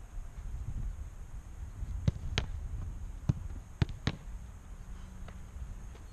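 Soccer balls being kicked, caught and bounced: a handful of sharp thuds, the loudest about two and a half seconds in.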